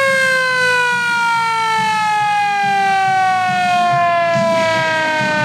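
Mechanical siren winding down: one long loud wail sliding slowly and steadily down in pitch.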